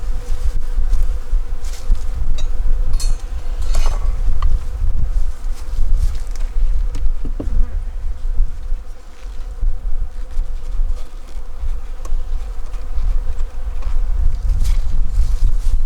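Honeybees buzzing in a steady hum around an opened hive, with scattered clicks and scrapes from hive frames being worked loose. A heavy low rumble runs underneath.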